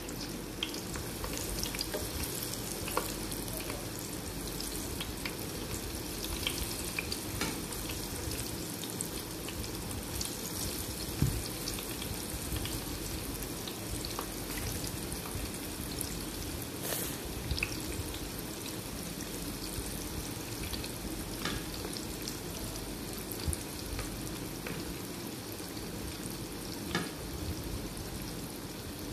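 Marinated, gram-flour-coated fish pieces sizzling steadily in oil heated to medium-high, with scattered sharp pops and crackles.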